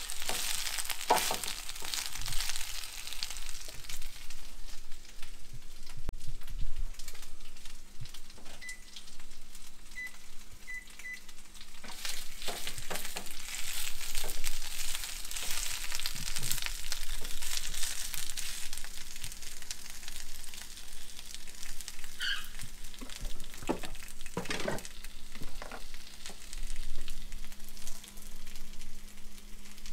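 Spinach sautéing in a frying pan with a little olive oil: a steady sizzle with crackles, and now and then a click or knock of stirring in the pan. A steady low hum runs underneath.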